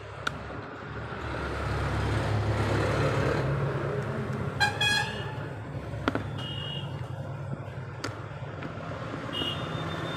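Traffic noise: a vehicle engine rumbling steadily, with a short horn toot about four and a half seconds in and two faint, brief high beeps later. A few light plastic clicks come from the combination switch being handled.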